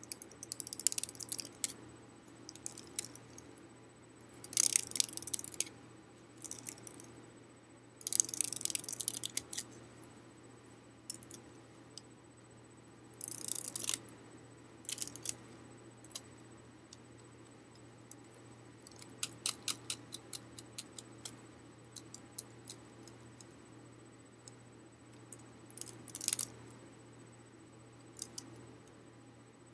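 Folding hand fan being opened, closed and flicked: short bursts of crisp rustling and clacking ribs every few seconds, with a quick run of small clicks about two-thirds of the way through.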